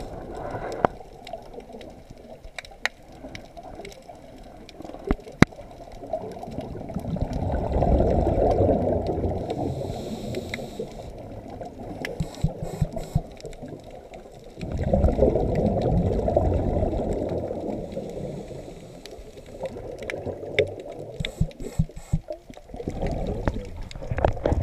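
Underwater scuba sound, muffled through a GoPro housing: regulator exhaust bubbles gurgling in two long surges of several seconds each, between them quieter water noise and scattered small clicks.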